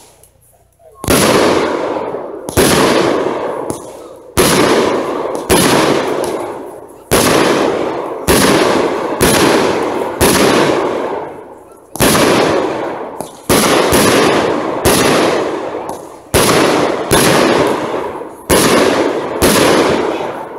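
A consumer fireworks cake firing its shells in a rapid string, about one a second. Each launch is a sharp report followed by a tail that dies away over about a second.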